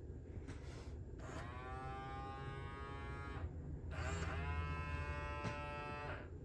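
Mattel D-Rex robotic dinosaur toy with its motors buzzing steadily, while it gives two long, drawn-out electronic calls, the first about a second in and the second about four seconds in.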